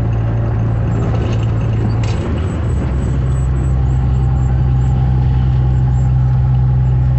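Vehicle engine droning steadily while driving at highway speed, heard from inside the cab. About two seconds in, the note dips briefly, then settles at a slightly different pitch and a little louder.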